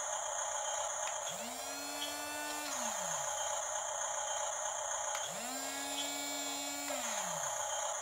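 Electric motors of a toy RC bulldozer whining twice: each time the pitch climbs, holds steady and then winds back down over about two seconds, about a second in and again about five seconds in.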